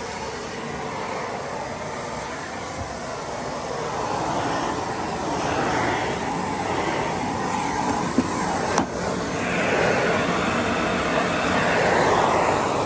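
Miele Blizzard CX1 bagless cylinder vacuum cleaner running, a steady suction noise that swells and eases as it is pushed over the floor, with litter going through it. One sharp click about nine seconds in.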